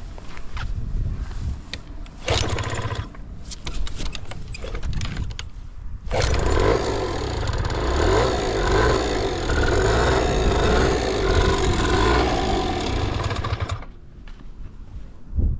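Suzuki Street Magic 50's small two-stroke engine running. It runs unevenly at first, then much louder and fuller from about six seconds in, and drops back to a low run near the end. The seller lists it as running with no abnormal noise.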